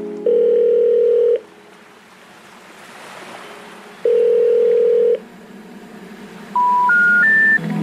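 Electronic telephone-line tones: two long steady beeps about four seconds apart, then three short beeps rising in pitch near the end, like the telephone network's 'number not in service' tone. A faint hiss fills the gaps between them.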